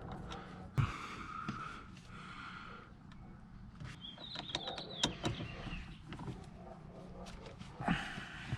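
Scattered clicks and knocks of hand tools working a hex-bit socket onto a car steering wheel's centre bolt, with a short squeak about four seconds in. The loudest knocks come about a second in and near the end.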